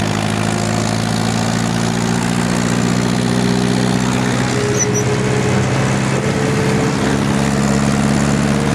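Ursus tractor's diesel engine running steadily while driving on the road, heard from the driver's seat just behind the upright exhaust pipe, with a slight rise in pitch about halfway through.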